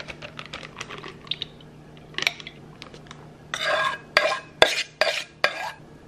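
Milk poured over ice cubes in a glass, with a run of small crackles and clinks from the ice. Then a metal spoon scrapes and clinks against a stainless steel mixing bowl four or five times.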